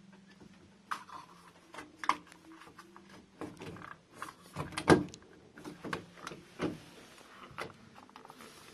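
Scattered clicks and knocks of a keypad door lock's inside piece being handled and fitted against the door, with the loudest knock about five seconds in.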